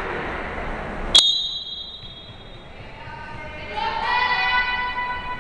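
A volleyball referee's whistle sounds once, sharply and high, about a second in, signalling the serve. Players and spectators then call out in held, sing-song shouts in the hall.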